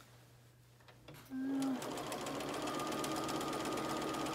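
Bernina sewing machine starting up a little over a second in, then running steadily as it stitches around the napkin's edge, with a fast, even ticking of the needle.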